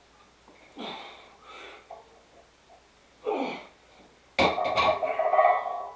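A lifter breathing hard between reps of a heavy incline bench press, with short forceful exhalations. About four seconds in comes a sudden, loud strained grunt of effort lasting over a second as the weight gets too heavy.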